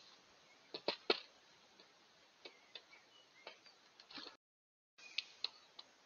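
Great spotted woodpecker pecking at seeds in a feeder dish: irregular sharp taps, three loud ones close together about a second in and more scattered after. A short dead gap comes near the end, where one recording cuts to the next, and then two more taps.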